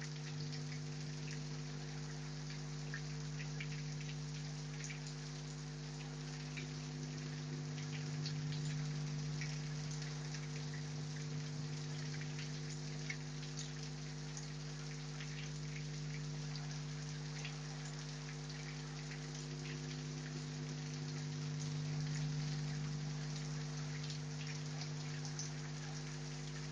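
Heavy rain falling, a steady hiss with many separate drop hits ticking close by, over a steady low hum.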